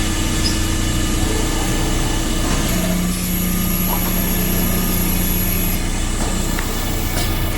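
CNC machine running: a steady mechanical hum with several steady tones, a lower tone joining about three seconds in.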